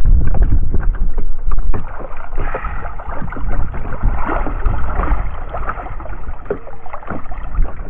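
Water sloshing and splashing around a wader's legs as he stomps the bottom of shallow water with his feet, feeling for quahogs. Wind buffets the microphone with a heavy low rumble for the first two seconds, then eases.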